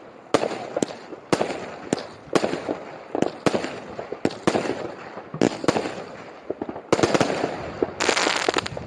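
Aerial fireworks bursting one after another, about two sharp bangs a second with echoing rumble between, ending in a dense crackling volley near the end.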